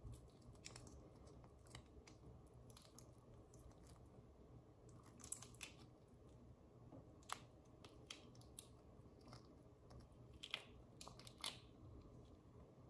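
Faint scattered crackles and small clicks of cooked shrimp shells being peeled apart by hand, with soft chewing, over a low steady hum.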